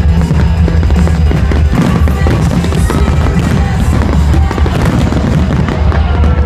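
Fireworks going off in repeated bangs over loud music with a heavy bass beat.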